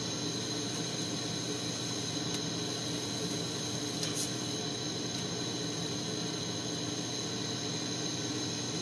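Propane-oxygen glassworking torch burning with a steady hiss, with two faint light clicks about two and four seconds in.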